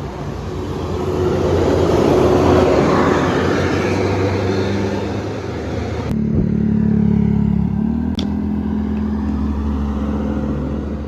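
A bus going past close by, its engine and tyre noise swelling to a peak and easing off; then, after a sudden cut about six seconds in, a bus engine running steadily with a low hum.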